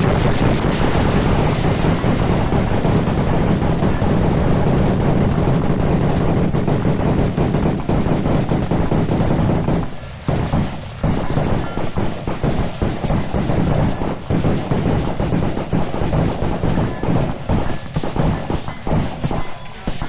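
Many pistols and AR-15 rifles firing at once in a dense, continuous volley. About ten seconds in it thins into scattered, irregular shots.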